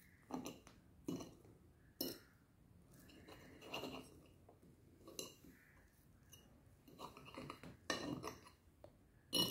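Metal fork cutting through a crispy fried bread omelette on a plate: a string of short crunches and clinks of the fork against the plate, a second or so apart, with a closer cluster near the end.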